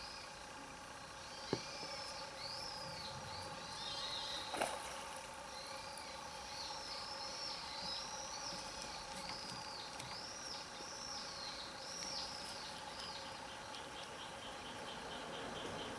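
A bird singing a long run of repeated arching chirped notes over a faint steady background hum, with two short knocks, about a second and a half and four and a half seconds in.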